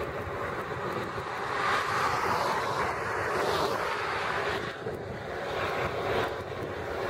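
A car passing close by on the highway: its tyre and engine noise swells, peaks as it goes by, and fades. More traffic noise rises again near the end.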